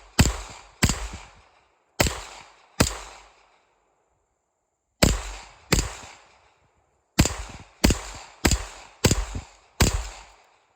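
Semi-automatic gunfire: eleven single shots, mostly well under a second apart, with a pause of about two seconds near the middle.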